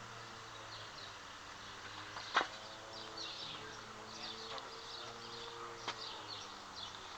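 Small birds chirping over and over in the background, with one sharp click about two and a half seconds in and a fainter one near the end.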